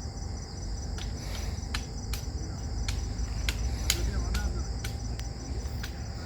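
Crickets chirping steadily in a high, rapidly pulsing trill, over a low rumble with a few faint clicks.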